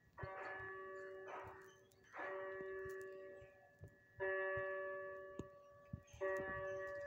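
Bell-like chiming: a ringing tone with several overtones, struck again about every two seconds and fading away between strikes.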